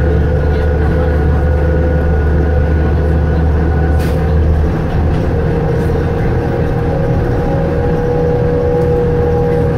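Inside a New Flyer C40LF natural-gas transit bus under way: the engine and drivetrain running steadily, with a steady whine from the rear axle. The deep low drone drops away about five seconds in, and there is a single brief click about four seconds in.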